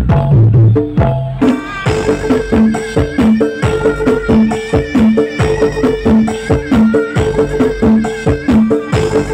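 Traditional East Javanese Bantengan accompaniment music: drums and percussion beating a steady, fast rhythm under a repeated low note, with a higher melody line settling in about two seconds in.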